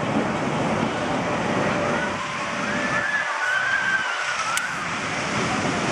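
Zierer Tivoli steel family roller coaster's long train rolling along its track overhead, a steady rushing rumble of wheels on steel rail, with faint high gliding squeals midway and a brief click.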